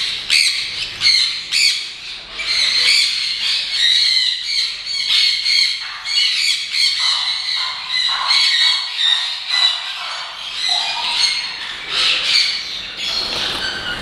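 Many caged parrots squawking and chirping over one another in a dense, continuous, high-pitched din, mostly sun conures.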